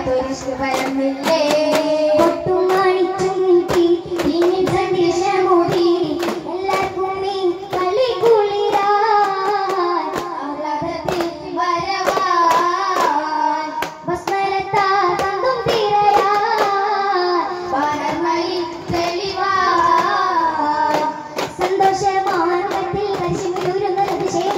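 A chorus of boys sings a melody in long held notes while hand-held daf frame drums are struck in a fast, steady rhythm, in the style of a Mappila daff muttu performance.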